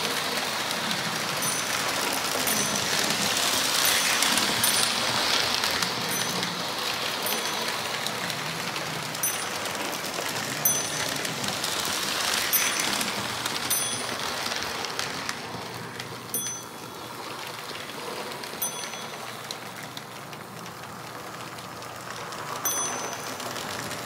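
Lionel 6220 Santa Fe diesel switcher running on tinplate three-rail track, its motor and wheels making a steady whir and rattle, with a short high ding from its bell every second or two. The running sound drops off about two-thirds of the way through.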